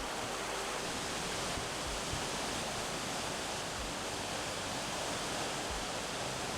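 Running water of a forest stream, a steady rushing hiss with no breaks.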